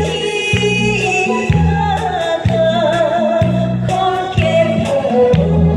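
A singer's voice over a Korean trot backing track, with a bass line on a steady beat under a wavering melody line.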